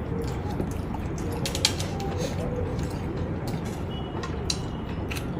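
Eating at a plate: a few sharp clicks and small creaks from a utensil or the plate over a steady low background hum.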